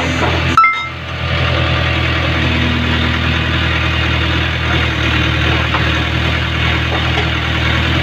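Backhoe loader's diesel engine running steadily as the backhoe arm digs sand from the stream bed, with a brief break in the sound under a second in.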